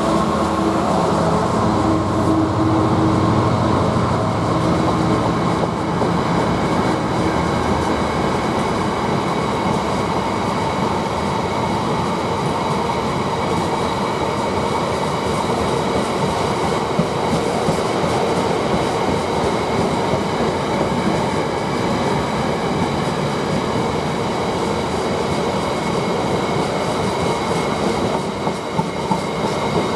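Class 66 diesel locomotive 66518 passing at the head of a freight train. Its two-stroke V12 engine note is strong for roughly the first eight seconds and then gives way to the steady rumble of freight wagons rolling along the rails. A few sharp wheel clicks come near the end.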